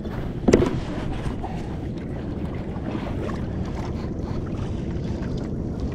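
Steady wind rush on the microphone over the sound of a kayak on the water. A single sharp knock comes about half a second in.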